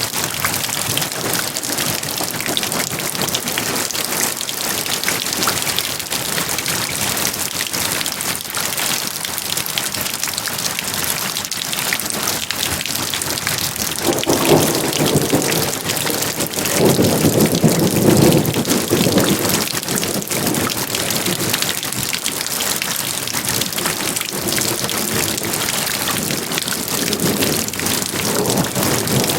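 Steady, heavy rain falling in a dense patter. Halfway through, thunder rumbles in, swelling twice over several seconds before fading back under the rain.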